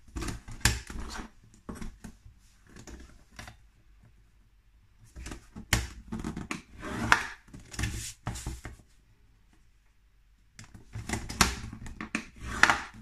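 Bone folder drawn along a paper trimmer's rail to score cardstock, in three groups of short scratchy strokes, with the card slid and tapped into place between them.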